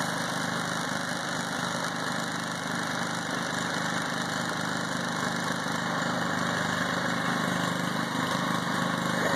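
Walk-behind lawn mower engine running steadily with its blade removed.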